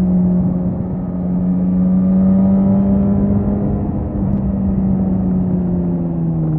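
Suzuki GSX-S 1000's inline-four engine running under way at steady, fairly high revs, its pitch holding almost level and easing slightly down near the end.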